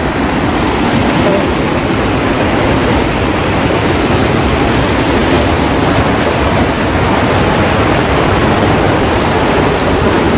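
Fast water rushing and churning white through a water ride's flume channel, a steady loud rush.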